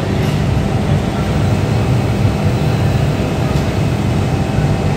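Steady low mechanical hum and rumble of factory machinery, with an automatic fabric-spreading machine running along its cutting table.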